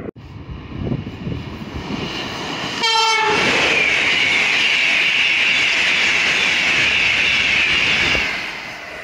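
Passenger train passing close at speed: one short horn blast about three seconds in, then a loud, steady rush of wheels on rail and air that fades away near the end.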